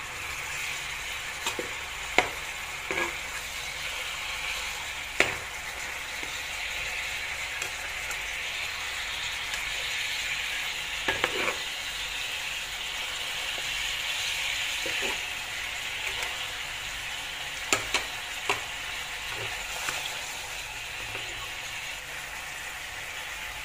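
Fish-sauce, garlic and chili glaze simmering and sizzling around fried pomfret in a nonstick frying pan as the sauce reduces to a thick glaze. Now and then there is a sharp click of the spatula against the pan as the fish is turned.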